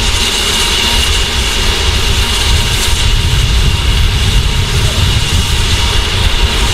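Standing steam locomotives with a steady hiss of escaping steam, a constant high whistle-like edge on it, over a rough low rumble.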